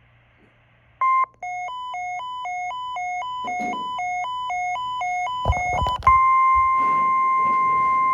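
Emergency alert broadcast tones: after a second of near silence, a short beep, then quick electronic tones alternating between high and low pitches, growing a little louder. About six seconds in, a long steady alert tone begins.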